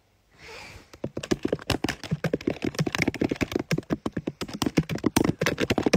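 A rapid, irregular run of sharp taps and clicks close to the microphone, many a second, starting about a second in.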